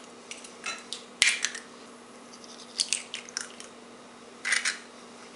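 Eggshells cracking by hand over a china plate. A sharp crack comes about a second in, then smaller crackles of shell being broken and pulled apart twice more.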